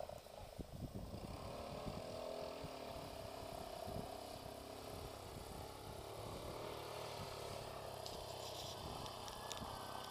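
Homemade quad bike's engine running in the distance, a steady hum with a slowly wavering pitch, over low rumbling on the microphone.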